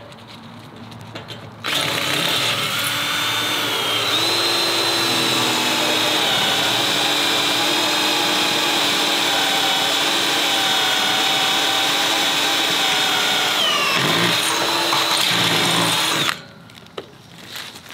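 Electric drill boring a hole through a paddock gate's hinge bracket, running steadily for about fifteen seconds. Its whine steps up in pitch a couple of seconds after it starts, sags briefly near the end as it bites, then stops.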